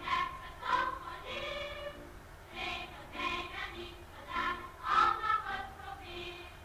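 Music with a choir singing: a melody of short separate notes, with a few notes held longer.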